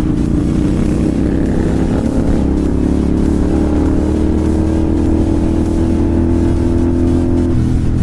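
Royal Enfield Continental GT 650 parallel-twin engine through an SS Moto slip-on exhaust, accelerating hard in one gear with its pitch rising steadily. The pitch drops sharply near the end as the rider shifts up.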